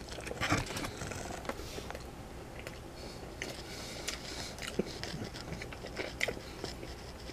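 A person chewing a mouthful of baked penne pasta in marinara sauce, with irregular small clicks of the mouth.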